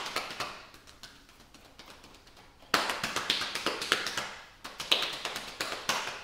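Hands rapidly patting up and down the thigh through trousers in a self-massage pat-down, a quick run of light slaps several a second. The pats are softer for the first couple of seconds and grow louder from about three seconds in.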